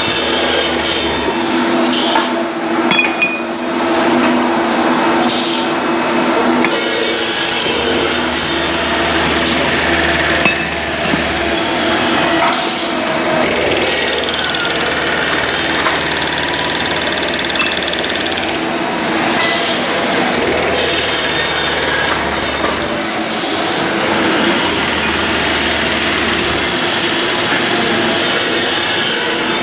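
Steady factory machinery din: a constant mechanical hum with a deeper drone that cuts in and out, and stretches of high hiss coming and going every few seconds.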